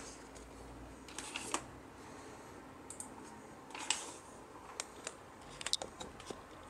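Handling noise: scattered light clicks and taps, a couple about a second in, one near four seconds and a quick run of them after five seconds, over a faint steady background.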